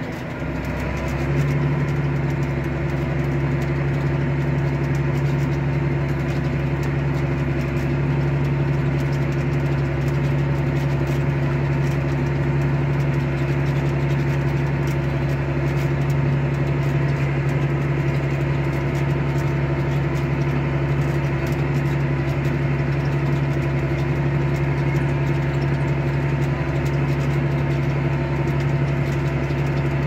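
John Deere tractor engine running steadily under load, heard from inside the cab as a constant low drone. The drone dips briefly just at the start, then holds steady.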